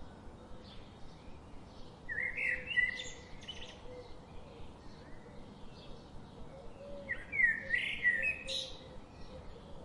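A songbird singing two quick warbling phrases, about two seconds in and again about seven seconds in, over a faint steady hum.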